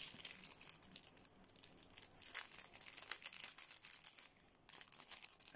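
Clear plastic packaging bag crinkling faintly as fingers handle it, a run of small crackles and rustles.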